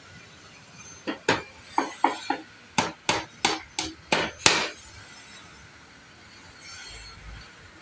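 Claw hammer striking nails into the wooden seat boards of a chair: a quick run of about eleven sharp blows over three and a half seconds, then it stops.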